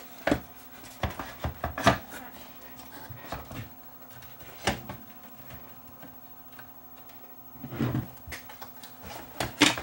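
Scattered clicks, knocks and light clatter of hands and tools working on a CRT monitor's chassis while its retaining straps are being removed, over a faint steady hum.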